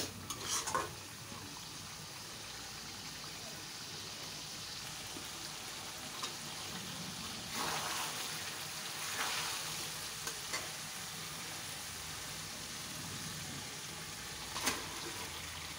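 Beef curry sizzling in an iron karahi while a metal spatula stirs and scrapes it: the meat is being fried dry in its spice paste (bhuna) before the gravy water goes in. A brief clatter near the end as potato chunks are tipped in from a steel plate.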